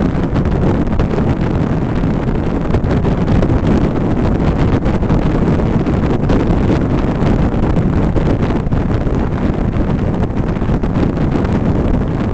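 Steady, loud wind rush buffeting the microphone of a roof-mounted action camera on a car cruising at 60 to 80 mph, heaviest and deepest at the low end, with the car's road noise mixed in.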